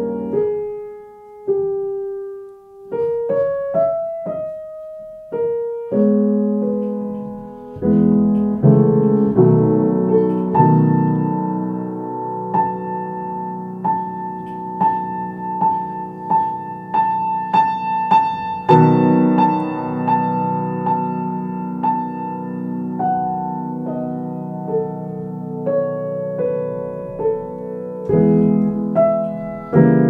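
Solo piano playing a slow classical piece. It opens with a few sparse single notes, then about eight seconds in moves to fuller sustained chords with a high note repeated above them.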